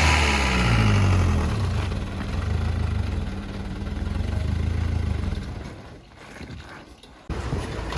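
A motor vehicle's engine running, rising in pitch about a second in, then fading away until it is faint. Louder noise cuts in abruptly near the end.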